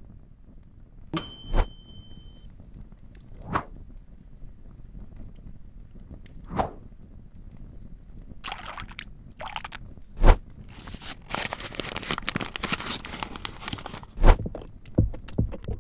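Kitchen preparation noises: scattered knocks and clinks against a metal bowl, with stretches of pouring or stirring hiss in between.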